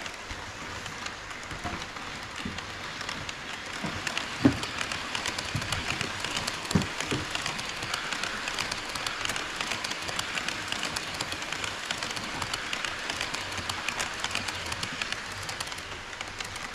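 HO scale model train running on KATO Unitrack: a steady rolling hiss with fine clicking of the wheels over the rails, and a few louder knocks, the strongest about four and a half and seven seconds in.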